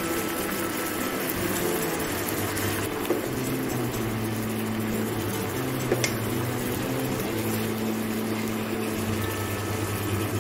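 Butter, honey and balsamic glaze sizzling and bubbling steadily around salmon fillets in a nonstick frying pan, with a single short clink about six seconds in as the fillets are basted.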